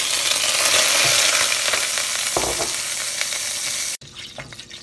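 Butter sizzling loudly as it melts in oil in an overheated stainless steel pot, stirred with a wooden spoon. The loud hiss cuts off suddenly near the end, leaving a softer sizzle with small crackles.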